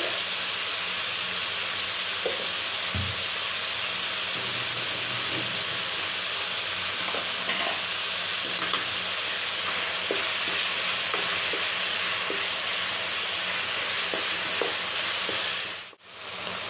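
Chopped onion and tomato frying in hot oil in a pan: a steady sizzle with small scrapes and taps of a spoon stirring. The sound drops out for a moment near the end.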